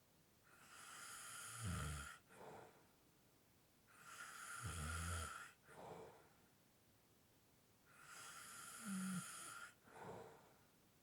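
A person snoring lightly: three slow breaths, each a long drawn-in breath that ends in a brief low snoring rattle, followed by a short exhale.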